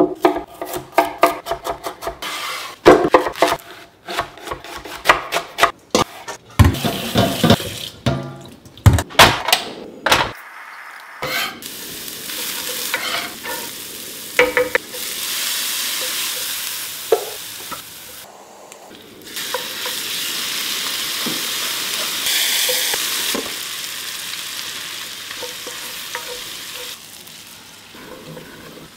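A knife chopping on a wooden board in quick runs of strokes. Then diced onion and carrot sizzle in oil in a pan, stirred with a wooden spoon. After a brief break, diced chicken sizzles as it fries, the sizzle louder for a while.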